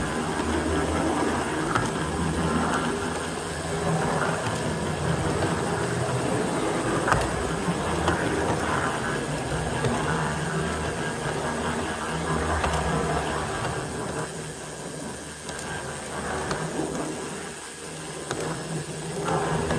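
G scale model train running along its track, heard from on board: a steady motor and wheel-on-rail hum with now and then a faint click. It grows quieter for a few seconds about three-quarters of the way through.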